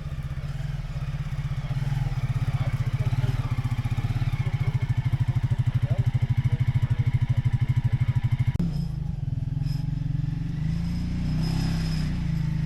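An engine running with a steady, rapid low pulse that grows louder, then switches abruptly to a different steady running note about two-thirds of the way through.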